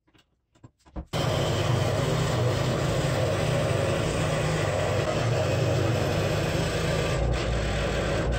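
Scroll saw running steadily while cutting a hole in 5/8-inch melamine board, with a constant motor hum under the cutting noise. It starts abruptly about a second in and runs evenly until it cuts off at the end.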